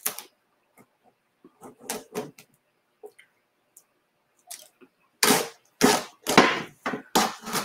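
Adhesive silk-screen stencil being peeled off a chalkboard: a few faint taps and rustles, then four or five short, loud ripping sounds in the last two and a half seconds as the sticky transfer comes away from the surface.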